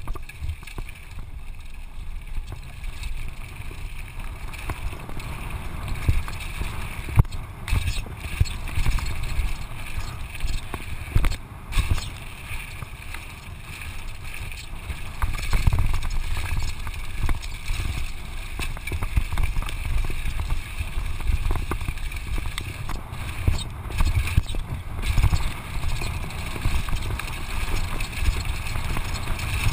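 Mountain bike rolling fast down a dirt and gravel trail: a continuous rumble of tyres on loose gravel, with the bike rattling over bumps.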